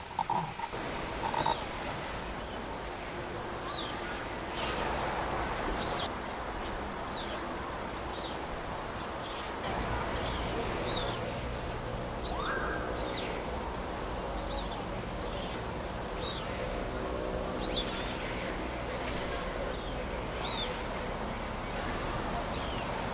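Summer outdoor ambience: a steady high insect buzz like crickets, with short falling chirps of small birds every second or so.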